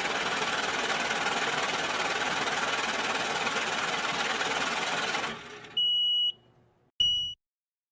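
Electric banknote counting machine whirring as bills riffle through it, cutting off about five seconds in. Two short high beeps about a second apart follow.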